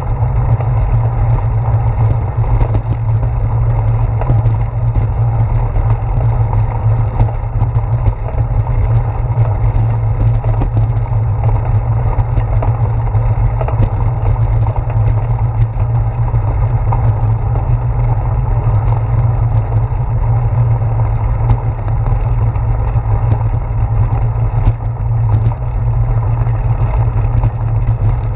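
Steady low rumble of wind buffeting and road vibration picked up by a handlebar-mounted GoPro Hero 4 on a bicycle rolling over brick pavers.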